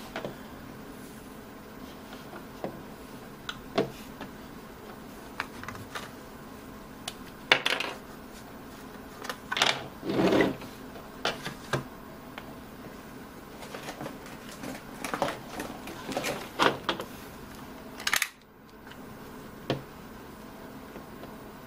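Irregular clicks, taps and short scrapes of small tools and plastic parts being handled on a tabletop, over a steady low hiss. The loudest is a scrape of about half a second about ten seconds in.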